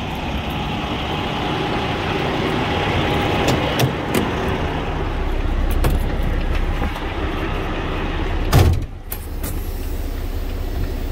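Semi truck's diesel engine idling with a steady low rumble. About eight and a half seconds in the cab door slams shut, and the sound turns muffled straight after.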